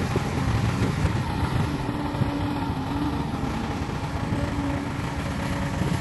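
Diesel engines of a Caterpillar excavator and a crawler bulldozer running as they work dirt, a steady heavy rumble with a held hum midway.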